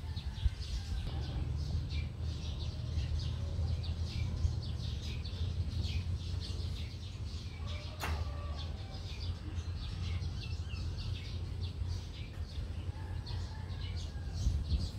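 Birds chirping again and again in short, quick calls over a steady low rumble, with a single sharp click about eight seconds in.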